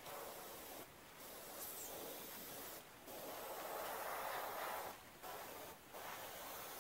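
Paasche Talon gravity-fed airbrush spraying alcohol-thinned paint: a soft hiss of air and paint that cuts off briefly four times and is strongest around the middle.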